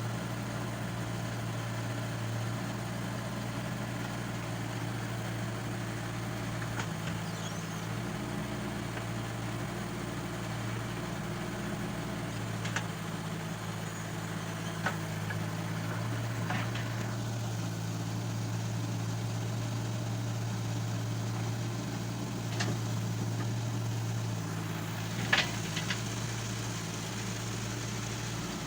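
JCB 1CX compact backhoe loader's diesel engine running steadily, with a few sharp clanks from the machine, the loudest about 25 seconds in.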